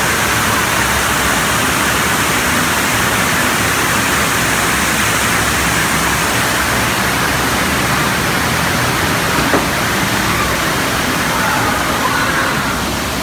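Loud, steady rush of water from the show's water vortex tunnel, like a waterfall heard up close. One short knock about nine and a half seconds in.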